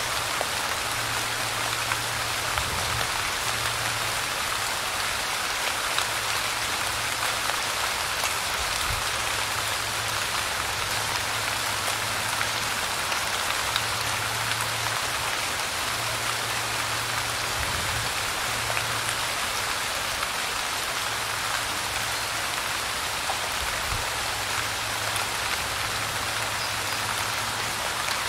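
Light rain falling steadily: an even hiss of rain on a surface with scattered small drop ticks, and a faint low hum coming and going underneath.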